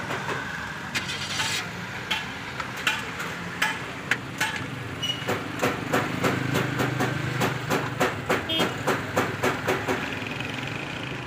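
Hand ratchet wrench clicking in quick runs as bolts on the hybrid battery pack's metal cover are undone, over a low steady hum.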